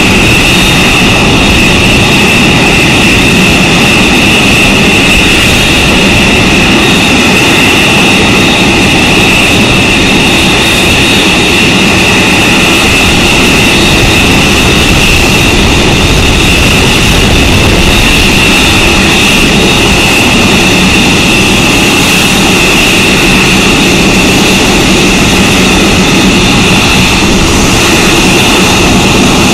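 Boeing 747-8F freighter's four GEnx turbofan engines running at taxi power: a steady, loud, high-pitched whine over a low rumble.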